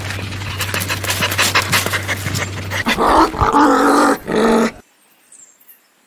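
A dog panting quickly, then a few short pitched dog vocal sounds, stopping abruptly about five seconds in.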